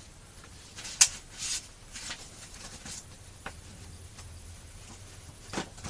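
Paper documents and packaging being handled: scattered rustles and light clicks, the sharpest about a second in, with a few more spread through.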